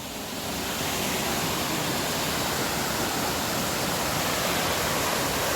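Steady rushing of a waterfall, rising in level over about the first second, then holding steady.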